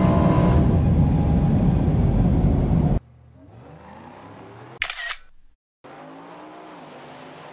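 Drag-racing engines: a loud, low engine rumble that cuts off abruptly about three seconds in, then fainter engine sound climbing in pitch as the vehicles pull away down the strip, with a brief sharp burst about five seconds in.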